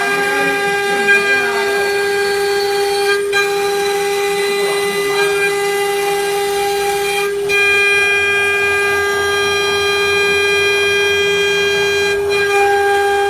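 Spindle of a small CNC 3025 engraving machine running with a steady high whine, as used for carving aluminium molds. The tone's overtones change about three seconds in and again at about seven seconds, where it gets a little louder.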